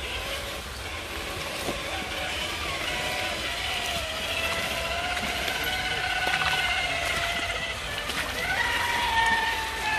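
Electric motor and gear drivetrain of an RC scale crawler whining as it crawls over leaf litter and roots. The pitch rises and falls with the throttle and steps up higher near the end.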